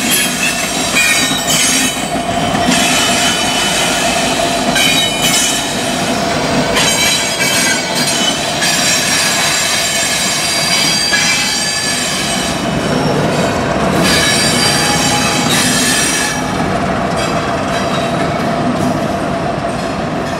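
Freight train hopper cars rolling past, their wheels squealing in a high pitch that comes and goes over the steady rumble of the cars.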